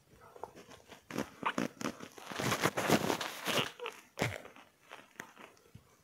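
Rustling and crinkling noises with scattered crackles, densest for about a second and a half from around two seconds in.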